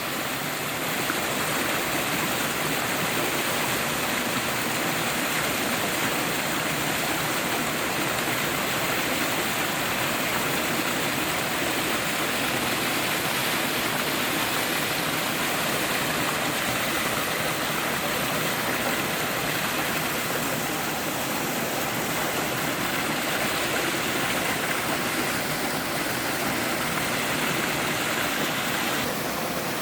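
Mountain stream water sliding down a three-tier slide waterfall over bedrock: a steady rush of falling and flowing water.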